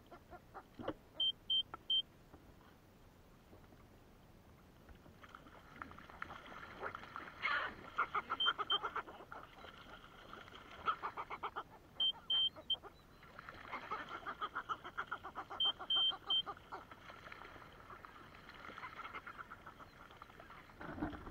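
Northern fulmars cackling in long, rapid chattering runs as they squabble over cod scraps next to the kayak. A few runs of short high beeps cut in, two to four at a time.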